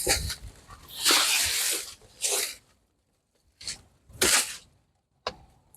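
Dry, dead banana leaves rustling and tearing in about six short bursts, the longest about a second in, as dead growth is cut and pulled away with loppers.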